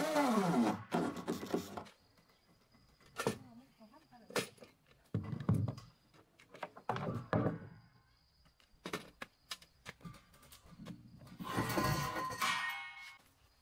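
Electric drill driving a screw into a wooden post, its motor pitch falling as the screw seats. Then scattered knocks and clicks, and about twelve seconds in a louder scraping clatter with some ringing as a long steel railing tube is moved across the wooden deck.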